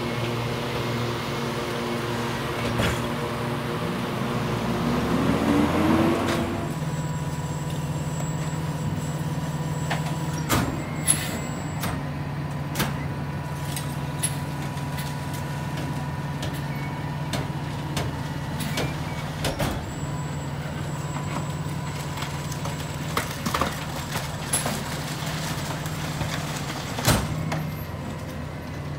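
Rear-loader garbage truck's diesel engine, first pulling away with a rising engine note, then idling steadily at the curb while recycling bins are emptied into the hopper, with scattered sharp knocks and clatter.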